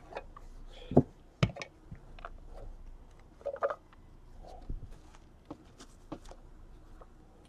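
Irregular light clicks and taps of cardboard and plastic trading-card packaging being handled, a few sharper knocks among them.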